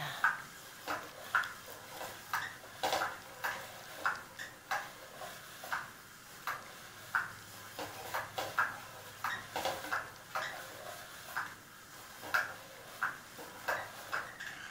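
Light, irregular clicks and taps, about one or two a second, from a cat playing at a bristle-arch cat self-groomer.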